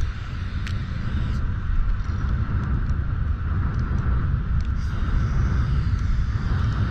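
Aerosol spray can hissing as silver paint is sprayed onto a concrete wall, in spells, over a steady low rumble.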